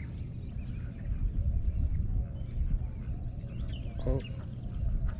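A duck gives one short quack about four seconds in, over scattered high chirps of small birds and a steady low rumble.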